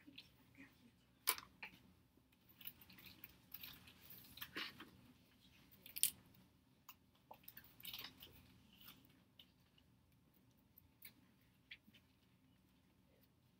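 Quiet classroom room tone with scattered small clicks and rustles from students handling things at their desks, two sharper clicks about a second in and about six seconds in.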